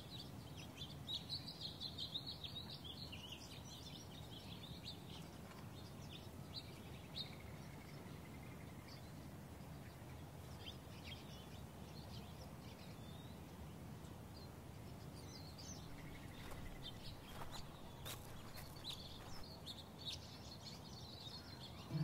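Small birds chirping and twittering faintly, busiest in the first few seconds and then in scattered calls, over a steady low outdoor background noise.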